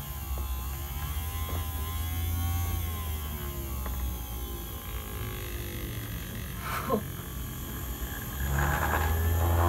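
Small DC motors of a kit-built laser projector running with a low hum and whir, their pitch wavering up and down as the control knobs are turned. The hum fades in the middle and comes back louder near the end, with a single sharp tick about seven seconds in.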